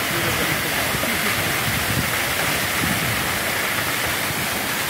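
Waterfall crashing onto rocks: a steady, unbroken rush of falling water.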